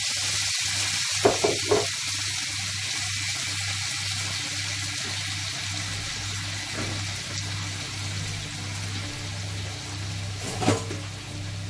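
Diced fresh tomatoes sizzling in hot oil in a frying pan, a steady hiss over a low hum that pulses about twice a second. A couple of light knocks about a second in and one near the end.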